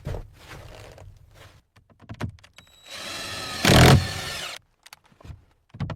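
A few scattered knocks, then a motor runs for about a second and a half, rising slightly in pitch and loudest near its end.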